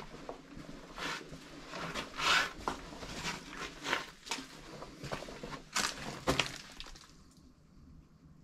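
Footsteps crunching over rubble and litter on a tunnel floor: irregular steps with a few sharper cracks, going quieter near the end.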